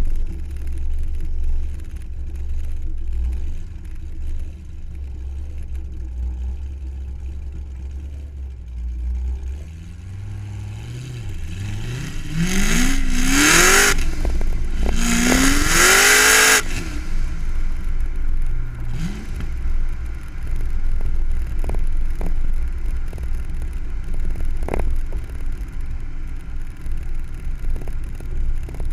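Car engine idling with a low rumble, then revved hard twice in quick succession about halfway through, pitch climbing each time, followed a few seconds later by a shorter blip of the throttle.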